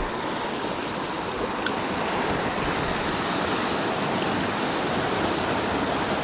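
Sea surf washing steadily against a rocky shore, a constant rushing noise with no break.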